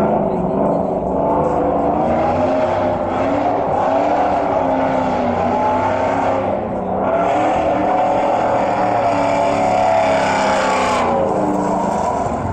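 Pickup truck engine revving up and down over and over as the truck drifts in circles, with a loud rushing noise of tyres sliding on asphalt that cuts off about eleven seconds in.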